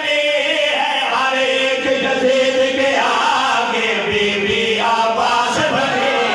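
Men chanting a devotional elegy together through microphones, the zakir's melodic recitation joined by his companions' voices, in long held phrases that glide in pitch.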